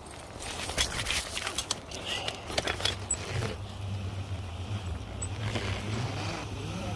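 Metal climbing gear clinking and jangling in quick irregular clicks for the first few seconds, then giving way to a steady low rumble.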